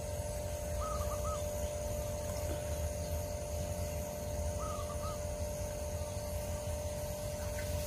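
A short warbling bird call, heard twice: about a second in and again near five seconds in. Under it runs a steady low rumble with a faint steady hum.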